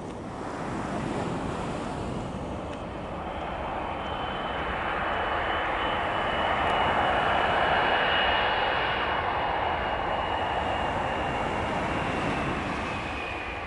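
Boeing 737-300's CFM56 turbofan engines on the landing roll: a rushing engine noise that swells to its loudest about eight seconds in, then eases, with a high steady whine through the middle that dips slightly in pitch near the end.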